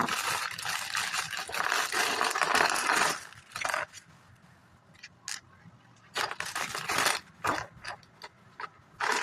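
Plastic bag of Lego pieces crinkling and rustling for about three seconds as it is cut and torn open, followed by scattered light clicks and short rustles.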